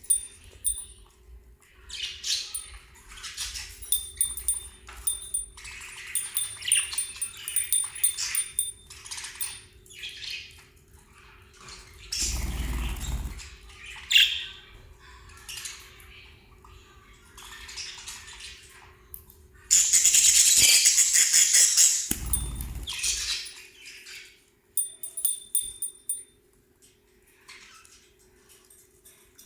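Small caged pet parrots, lovebirds and budgerigars, chirping and chattering in short high calls throughout. About two-thirds of the way in a loud, dense rustling burst lasts about three seconds, with a low rumble near the middle and another just after the burst.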